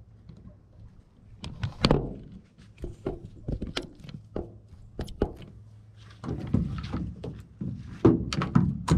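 Close handling noise of gear: a run of clicks, knocks and rustles, with a louder knock about two seconds in and busier, louder handling near the end.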